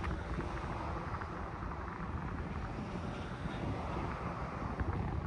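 Wind buffeting the microphone in uneven gusts over a steady rushing outdoor background.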